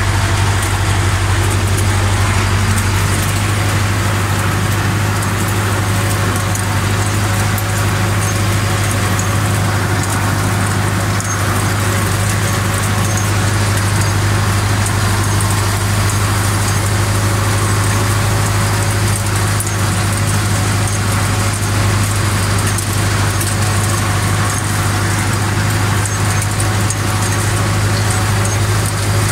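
Russian-built tractor's diesel engine running at a steady speed, heard from inside the cab, with faint regular ticking and rattling from the Krone KS twin-rotor rake working behind it.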